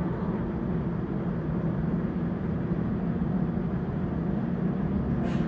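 Steady low rumble of an underground subway station, with a brief hiss near the end.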